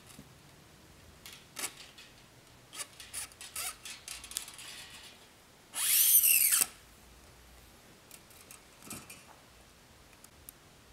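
Light clicks and scrapes of hands working at a Telecaster's metal bridge. A little under six seconds in comes a loud, scraping metallic slide of about a second whose pitch bends downward: a steel guitar string being pulled through the body and bridge.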